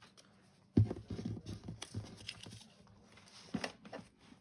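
Household pets scuffling and scrambling: a sudden knock about a second in, then a quick run of thumps and clatters, with a few more near the end.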